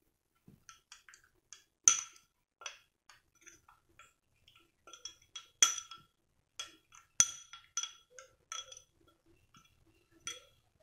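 Metal spoon stirring a wet spice paste in a ceramic bowl, clinking irregularly against the bowl's sides, each clink ringing briefly, with a few louder knocks among them.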